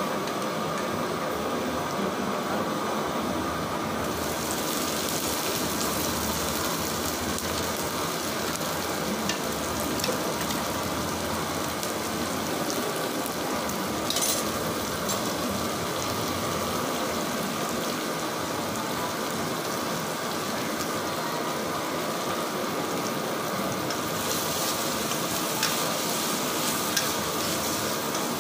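Sliced onions, capsicum and green chillies sizzling steadily in hot oil in a pan; the sizzle grows brighter about four seconds in. Near the end a ladle stirs the pan.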